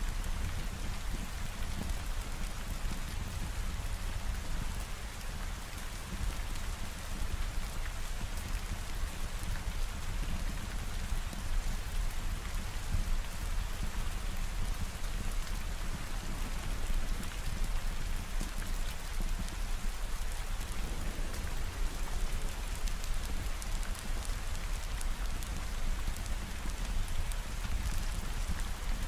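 Steady rain falling, a continuous even hiss of drops with a deep low rumble underneath.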